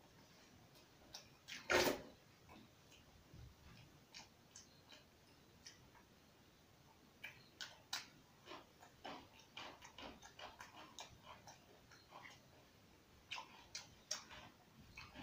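A person eating rice and chicken curry with his fingers from a banana leaf: faint, irregular mouth clicks and chewing sounds, with one louder thump about two seconds in.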